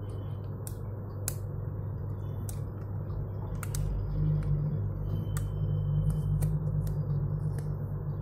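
Light scattered clicks and crinkles of fingers handling a smartphone and peeling the clear protective plastic film off its back, over a steady low hum.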